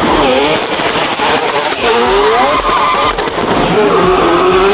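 Four-rotor 26B twin-turbo rotary engine revving up and down several times, with a few sharp cracks from the exhaust.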